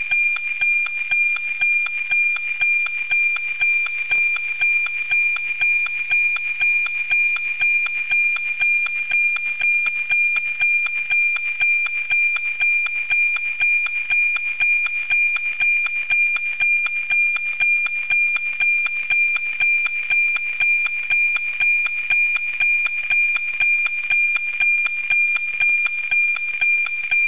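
NOAA-19 weather satellite's APT image signal, received by an RTL-SDR and FM-demodulated to audio: a steady, high, whistle-like tone with a rhythmic tick-tock about twice a second. The ticks are the sync pulses that mark each scan line of the picture as it comes down.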